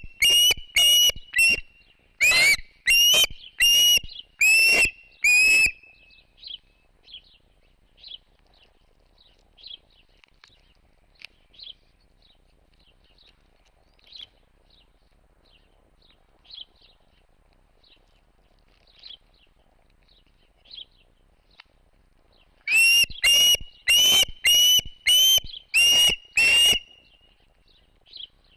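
A bird calling in two runs of loud, high whistled calls, each run about nine calls at roughly two a second, one at the start and one near the end. Faint chirps are scattered in between.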